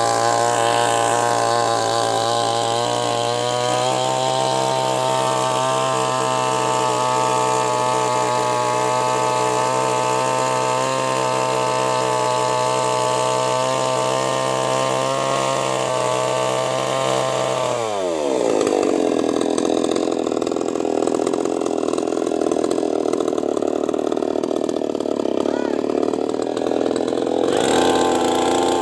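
Chainsaw engine running at a steady high speed. About 18 seconds in, its pitch falls sharply and it runs on with a lower, rougher sound, shifting again near the end.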